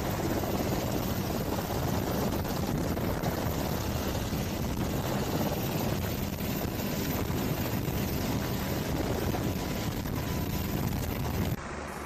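Helicopter running overhead, a steady loud rotor and engine noise with a fast low chop. It cuts off suddenly near the end, giving way to a quieter engine hum.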